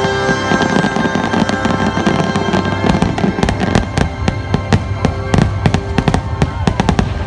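Finale barrage of aerial fireworks shells: rapid bangs and crackling bursts, several a second, growing denser after a few seconds, over loud show music.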